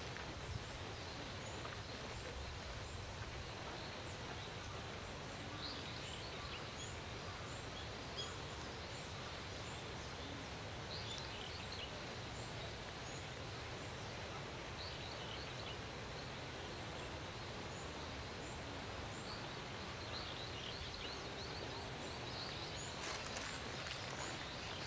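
Outdoor ambience: a steady wash of background noise with faint bird calls now and then, and a quick run of tiny high chirps repeating about twice a second through the first half.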